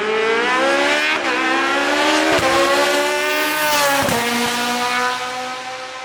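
Hillclimb race car accelerating hard away from the start line, its engine climbing in pitch and dropping at each of three quick upshifts, then fading as it pulls away near the end.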